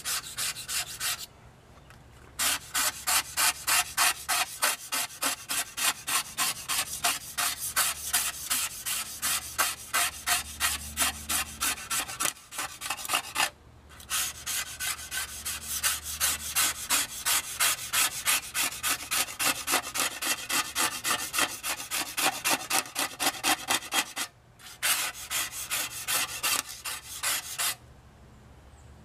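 Razor blade scraping rust off the steel plate of an old E.C. Atkins handsaw, in quick back-and-forth strokes about two to three a second. It pauses briefly three times and stops near the end.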